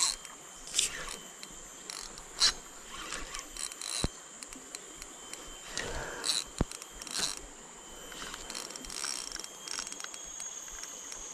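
Spinning fishing reel and rod being worked by hand while the line is snagged, giving scattered clicks and scrapes, two of them sharp, about four seconds and six and a half seconds in.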